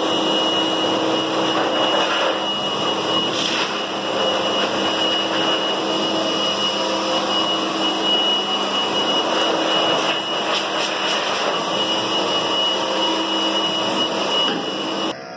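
Hose-fed pet blow dryer running steadily, a loud rush of air with a constant high motor whine, as it blows through a dog's coat. It cuts off abruptly near the end.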